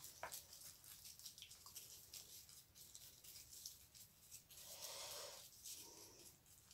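Near silence, with faint soft ticks and scratches of a fine paintbrush dabbing paint onto a small paper flower held in latex-gloved fingers, and a soft rustle about five seconds in.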